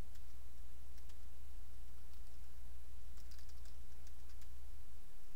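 A few faint computer-keyboard key clicks as a terminal command is typed, most of them about three seconds in, over a steady low hum.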